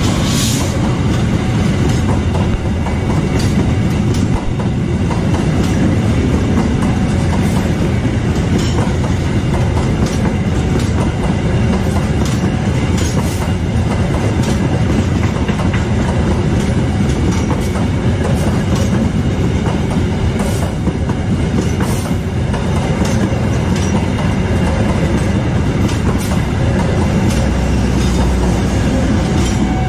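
Passenger train coaches rolling past close by at speed: a steady loud rumble with the wheels clicking irregularly over the rail joints.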